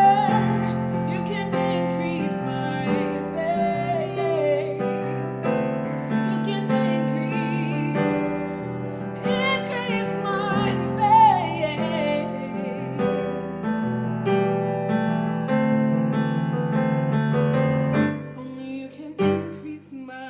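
Woman singing with vibrato over piano chords as a slow song draws to its close; the music thins out and fades near the end, with a couple of short knocks.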